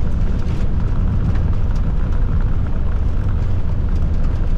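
Landing rollout of a Boeing 747-400F heard on the flight deck: a loud, steady, deep rumble of the four engines in reverse thrust and the wheels running on the runway.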